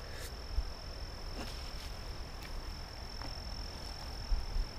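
An insect chirring steadily on one high, unbroken note, over a low rumble and a few faint knocks.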